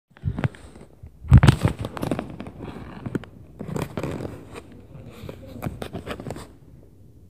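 Irregular heavy thuds and knocks of footsteps stomping on the floor above, heard through the ceiling, coming in clusters with the loudest thud about a second and a half in. They die down near the end.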